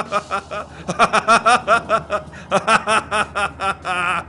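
A cartoon character laughing: a rapid string of short pitched 'ha' pulses, several a second, ending in a brief wavering held note near the end.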